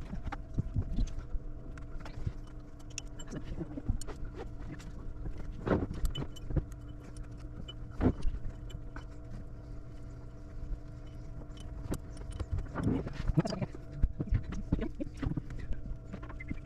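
Irregular metal clicks and knocks of hand tools and screws as the raw water pump is bolted back onto a boat's inboard engine, over a steady hum.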